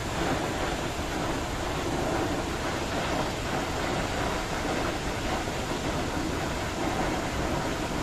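A tall waterfall pouring down a cliff into its plunge pool: a steady, dense rush of falling water.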